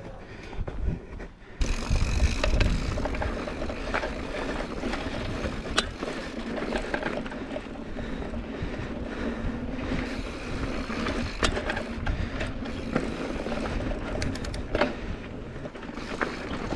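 Mountain bike riding over a dirt and rock trail: tyre and trail noise with the bike rattling, and a few sharp knocks over bumps. The noise jumps louder about one and a half seconds in.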